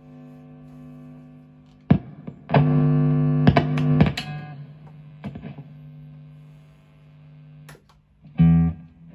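Electric guitar played through amplifiers: a held note rings, then a chord is struck and left to ring for about a second and a half before it is damped. A short, sharp chord stab comes near the end.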